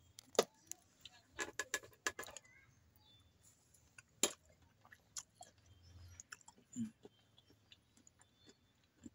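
A steel spoon clinking against a stainless-steel tray of pista badam milk, a quick run of sharp clicks in the first couple of seconds, then scattered soft mouth clicks and chewing as the spoonful is eaten.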